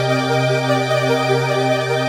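Background music: a held low bass note under a repeating pattern of notes.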